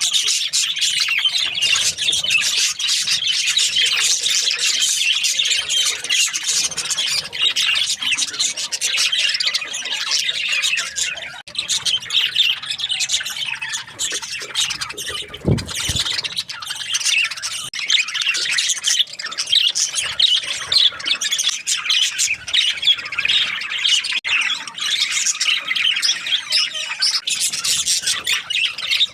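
Budgerigars chirping and chattering without a break, many high squawky calls running together. A brief low thump comes about halfway through.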